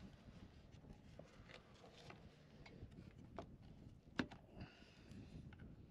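Near silence: faint scattered taps and rubbing from hand work on wood, with one sharper tap about four seconds in and a brief faint scratch just after it.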